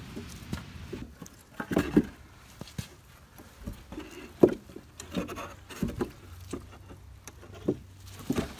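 Irregular knocks and scrapes of wooden boards and pine blocks being handled and set in place, with one louder knock about halfway through.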